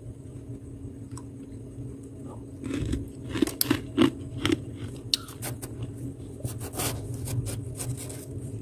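Soft, crispy humidifier-grown freezer frost being bitten and chewed close to the microphone. A run of sharp crunches starts about three seconds in and goes on in irregular bites to the end.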